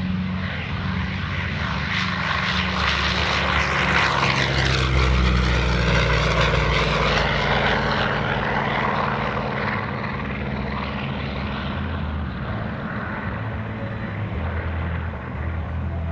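FG-1D Corsair's Pratt & Whitney R-2800 radial engine running at takeoff power as the plane lifts off and climbs out. The sound grows louder as it passes, with the pitch dropping, then fades as it climbs away.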